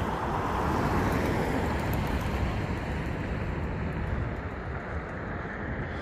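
Road traffic noise from a passing vehicle, a steady hiss of tyres and engine that is loudest in the first two seconds and then slowly fades.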